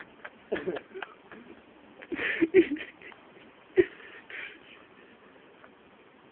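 A run of short sneezes, several in the first few seconds, the loudest a little after two seconds in and a sharp one near four seconds.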